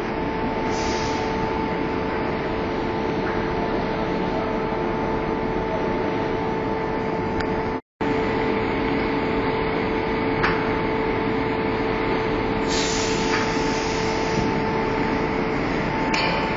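Steady drone of a brick-machine hydraulic power unit running: electric motor-driven pumps with a constant whine, two steady tones about an octave apart. A short hiss about three-quarters of the way through and a few light clicks; the sound drops out for an instant about halfway.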